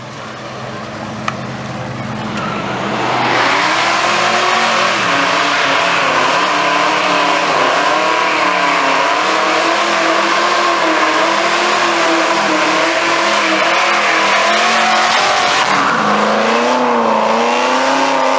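American muscle car doing a burnout. Its engine builds up over the first few seconds, then is held at high revs with a wavering pitch under a loud, steady tyre squeal. Near the end the squeal eases and the engine note rises and falls.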